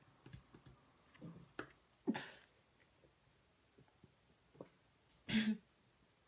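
A woman holding in a cough with her mouth shut: a few faint throat and breath noises, then two short muffled grunts, about two seconds in and again near the end.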